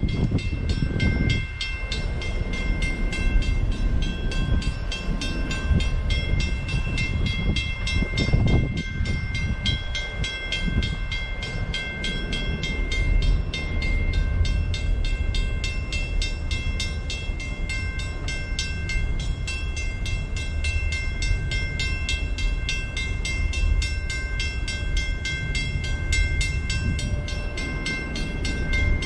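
Canadian Pacific double-stack intermodal freight cars rolling past a level crossing: a steady rumble of wheels on rail, with the crossing bell ringing in rapid, even strokes over it throughout.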